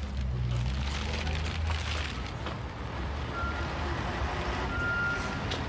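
Motor vehicle engine running amid street noise, a steady low drone that fades after about two seconds.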